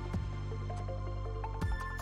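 Background music with a steady beat, a bass line and a melody of short held notes stepping up and down.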